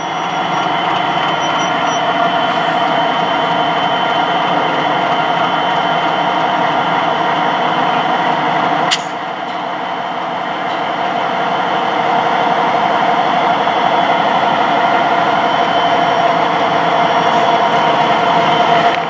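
82 class diesel-electric locomotive moving slowly, its diesel engine running steadily and getting gradually louder as it comes closer. A single sharp click about nine seconds in.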